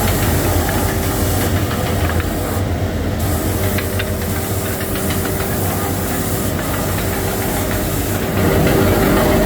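Three-station wood sanding machine running, a steady hiss over a steady motor hum, getting a little louder about eight and a half seconds in.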